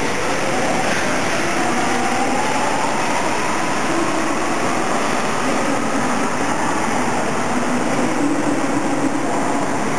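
Rubber-tyred Paris Métro line 4 train pulling out of the station and accelerating away: a steady loud running noise with a motor whine that rises in pitch over the first few seconds.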